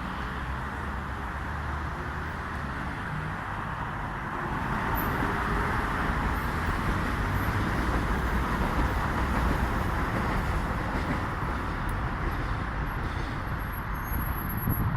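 Steady rumble and hiss of passing vehicles, growing louder about four seconds in and then holding.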